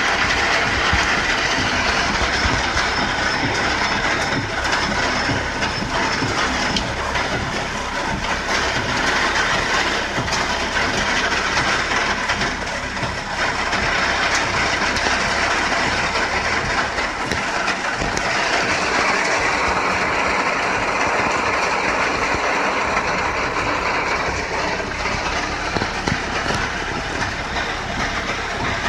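Torrential rain hitting a car's roof and windshield, heard from inside the cabin: a loud, steady, dense hiss made of countless small impacts.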